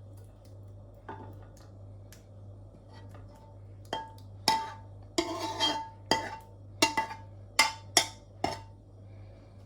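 A utensil knocking and clinking against dishes while fried tomatoes are lifted out of the pan onto a plate. There are a few faint knocks early on, then from about four seconds in a run of about eight sharper clinks, each with a short ring, roughly one every two-thirds of a second.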